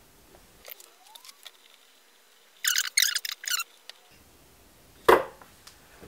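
Handling noises at a soldering bench: a few faint clicks, then a quick run of four short, high, scratchy squeaks about halfway through, and a single sharp knock about a second before the end.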